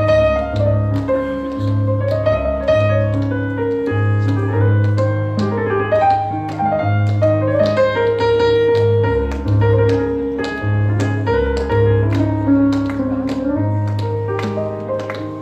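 Live instrumental music led by a Roland stage piano, with hand clapping keeping time, the claps growing louder near the end.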